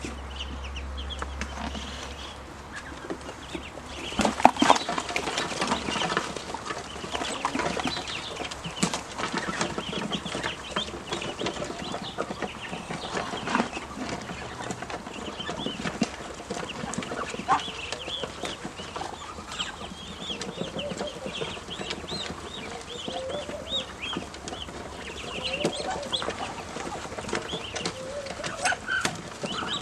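A group of young ducklings peeping and chirping almost without pause, with some lower calls mixed in and scattered clicks and knocks.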